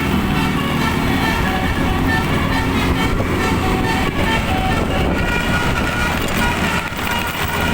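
Bus 'basuri' telolet air horn playing a rapid tune of short notes that step from pitch to pitch, over a steady low rumble.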